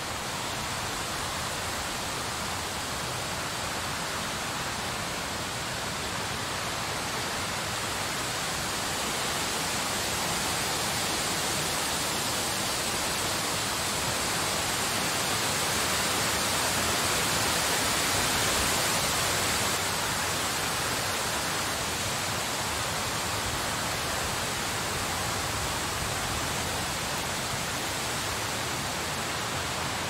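Blizzard wind blowing as a steady rushing hiss, swelling into a stronger gust about two thirds of the way through, then easing back.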